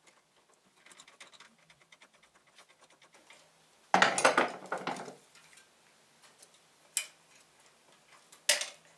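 Light ticking clicks, then a loud clatter lasting about a second about four seconds in, one sharp click near seven seconds and another brief clatter near the end: plastic and metal parts of a 3D printer's frame being handled and prised at.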